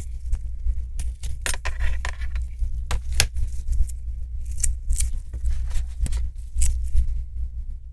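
Scattered light clicks and scrapes of a thin metal strip against the metal edge of a laptop LCD panel as gloved hands handle and fit it, over a steady low hum.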